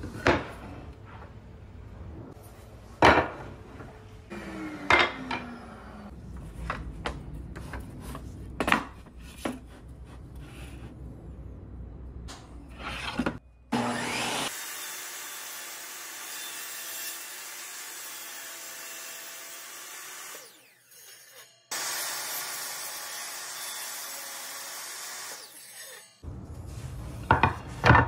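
Wooden slats knocked and shifted on a workbench, sharp wooden clacks at irregular intervals. Then a table saw runs for about six seconds, breaks off for about a second, and runs again for about five seconds, before more wooden knocks near the end.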